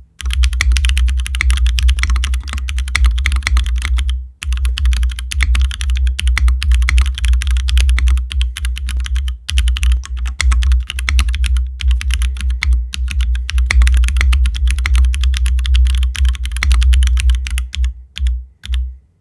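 Typing sound test on a MODE Sixtyfive mechanical keyboard with Cherry MX Black linear switches, GMK ASCII keycaps and an aluminium plate in isolated top mount: fast continuous keystrokes with a brief pause about four seconds in, thinning to a few separate key presses near the end.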